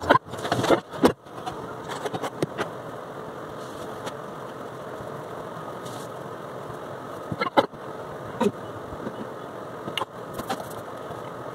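A few knocks, taps and scrapes as a spiral sketch pad is handled and shifted on a wooden desk, over a steady background hum.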